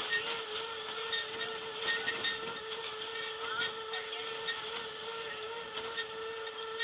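Boardwalk tram car running along, giving a steady high whine that holds one pitch, with faint scattered ticks over a low rumble of travel noise.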